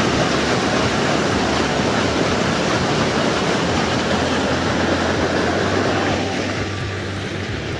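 Steady rushing noise of sewage treatment plant water and machinery, with a low steady hum underneath. It becomes a little quieter about six seconds in.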